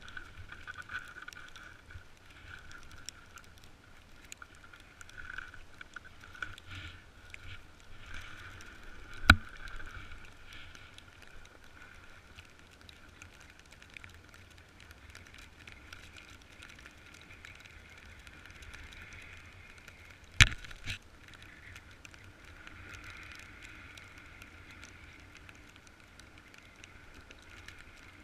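Snowboard sliding and scraping over snow, with two sharp knocks, one about nine seconds in and a louder one about twenty seconds in.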